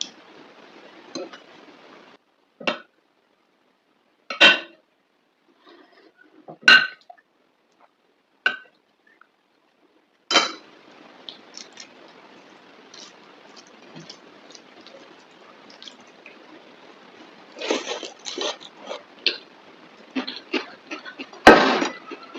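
Clinks and clatter of a plate and eating utensils during a meal: single sharp knocks about every two seconds at first, then a denser run of clattering near the end, with the loudest knock just before it stops.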